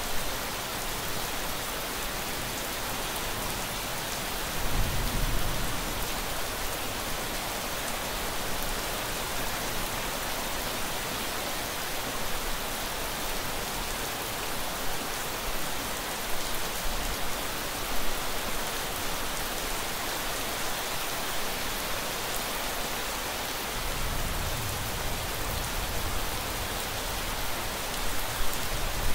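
Steady rain falling in an even hiss, with a short low rumble about five seconds in and a longer one near the end.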